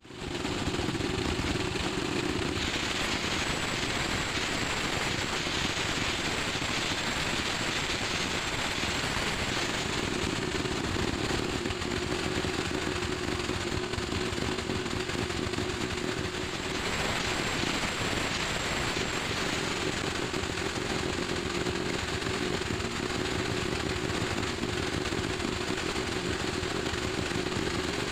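Small motorcycle engine running steadily at idle, a rapid even pulsing with one steady tone.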